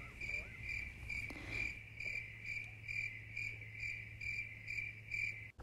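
Crickets chirping in an even rhythm, about three high-pitched chirps a second, over a faint low hum.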